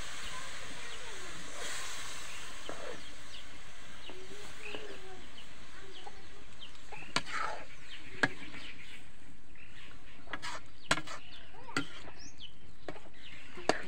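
Water hissing and bubbling in a hot steel kadhai of rice and vegetables just after it was poured in, the hiss fading over the first few seconds. Then a steel ladle clinks sharply against the pan a few times while stirring.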